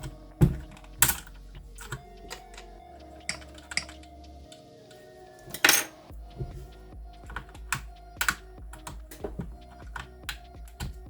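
Keys being pressed one by one on a Keychron K4 V2 mechanical keyboard with linear Gateron Yellow switches: irregular clacks, a few struck much harder than the rest, with faint background music under them.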